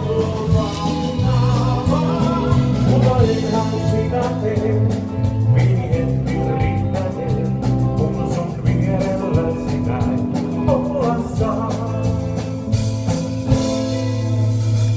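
Live band music from an outdoor stage: a singer over a band with a strong bass line and a steady drum beat.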